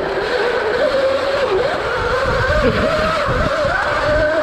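Electric dirt bike's motor whining, its pitch wavering up and down as the rider works the throttle, over a low rumble from the ride.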